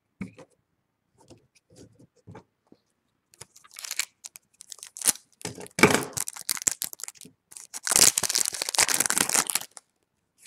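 Foil wrapper of a baseball card pack being torn open and crinkled in several bursts, the longest near the end.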